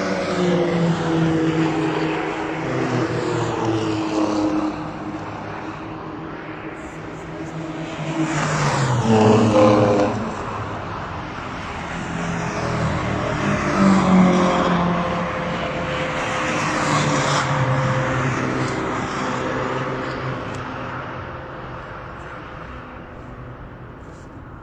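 Several Alfa Romeo cars passing at speed one after another on a racetrack straight, each engine note dropping in pitch as it goes by. The loudest passes come about 9 and 14 seconds in, and the sound fades away near the end.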